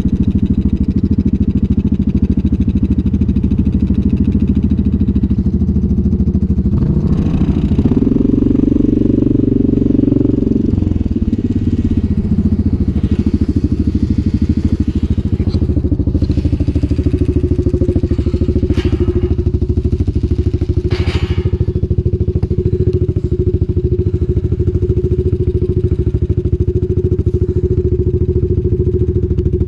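Yamaha Grizzly 700 ATV's single-cylinder engine idling steadily, picking up to a higher speed for a few seconds about seven seconds in as the quad moves, then settling back to idle. A couple of sharp clicks near the middle.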